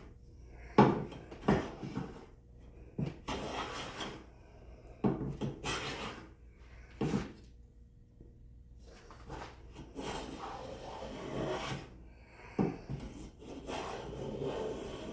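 Craftsman No. 5 bench plane pushed along a wooden board in several scraping strokes, the iron now set deep enough to catch and cut a shaving. A few sharp knocks fall between the strokes.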